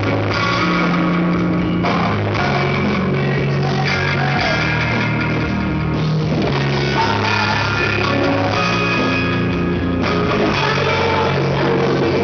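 Rock band playing live: distorted electric guitars over a moving bass line and drums, loud and unbroken.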